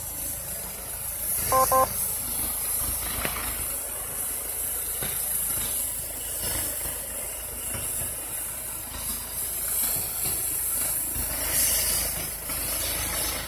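Steady high hiss over a low engine rumble from engines idling on scene. Two short electronic beeps sound close together about a second and a half in.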